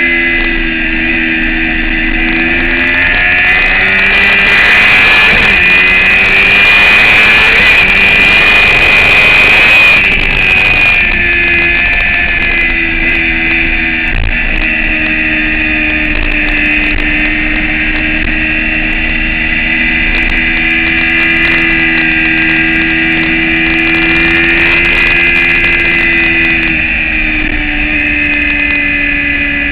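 Motorcycle engine running at fairly steady revs, with wind rushing over the microphone from about four to eleven seconds in and the engine note dropping slightly near the end.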